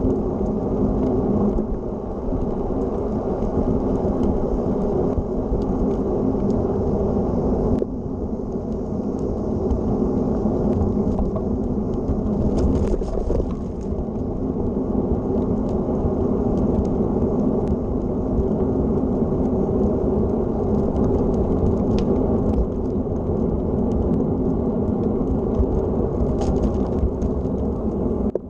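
Road bike rolling along an asphalt path: a steady rumble of tyre noise mixed with wind buffeting the microphone, with a few faint ticks.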